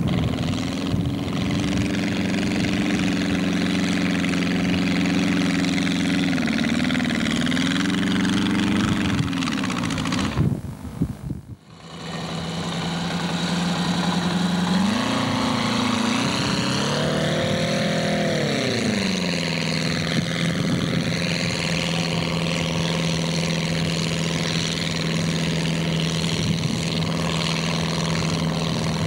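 Engine of an amphibious, converted VW Beetle running as it drives through water, with water splashing. The revs dip and rise twice, with a brief cut in the sound about eleven seconds in, then settle to a steady note.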